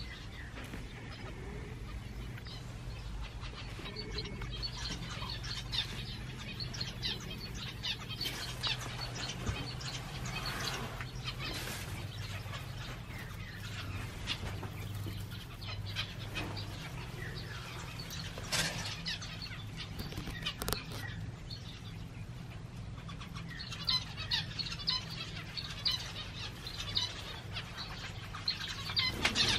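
Small aviary finches chirping and calling: many short, high calls scattered throughout and busiest near the end, over a low steady hum.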